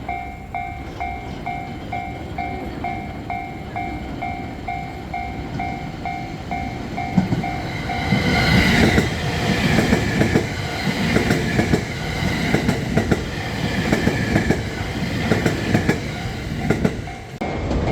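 Level-crossing warning bell ringing in a steady pulse about twice a second, then a train passing over the crossing from about eight seconds in, its wheels clacking over the rail joints with a rumble that drowns out the bell. The train noise cuts off abruptly near the end.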